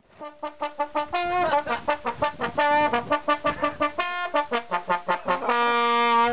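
Trombone playing a quick run of short notes, ending on one long held note.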